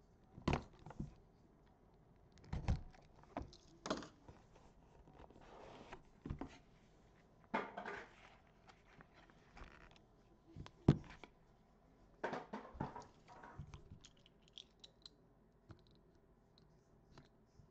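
Cardboard trading-card hobby box being cut open with a box cutter and handled on a table: scattered knocks, clicks, scrapes and rustles, the loudest knock about eleven seconds in.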